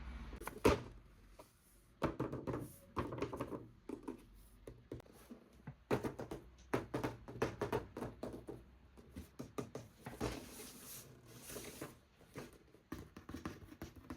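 Hands handling a toy and its packaging: irregular clicks, taps and knocks, with brief rustling.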